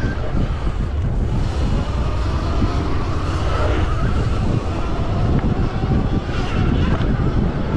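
Wind buffeting the onboard microphone of a stock Sur Ron X electric dirt bike at race speed, with a faint motor and drivetrain whine underneath that wavers in pitch with the throttle.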